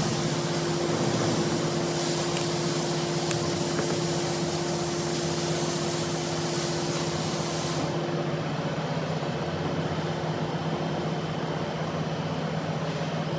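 Metal lathe running steadily while machining, a constant low hum under a broad hiss. The highest part of the hiss drops away about eight seconds in.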